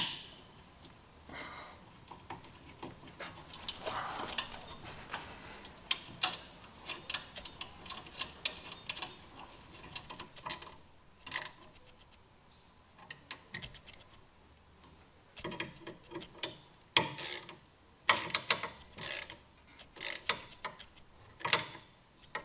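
Hand ratchet clicking in short, quick runs as the original shoulder bolts are driven in to mount a motorcycle floorboard, with scattered metal clinks of tools and parts and a sharp knock right at the start.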